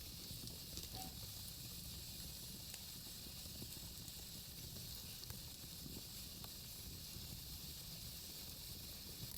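Wood fire burning in a fireplace: a soft, steady hiss with a few faint crackles from the logs.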